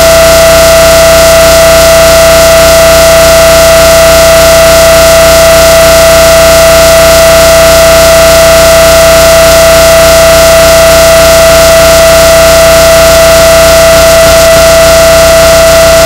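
A single steady electronic tone held without any change, pushed to full loudness so it is heavily distorted and clipped, with a harsh hiss of noise over it.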